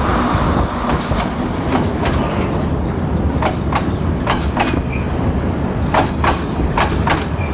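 Chinese-built Class S9 diesel multiple unit passing close by: a steady low rumble of the rolling train, with the wheels clacking over the rail joints, mostly in pairs of clicks.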